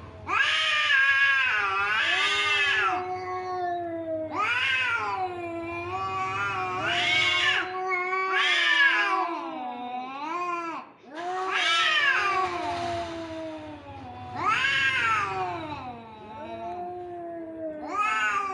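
Domestic cats caterwauling in a face-off: a continuous drawn-out, wavering yowl that swells every two to three seconds into loud rising-and-falling wails, then sinks back to a lower moan. This is the threat yowling of two cats squared up to fight.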